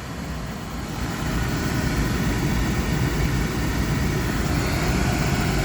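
Oil furnace blower fan coming on about a second in and then running steadily over the running oil burner. The fan starts on its delay after burner ignition.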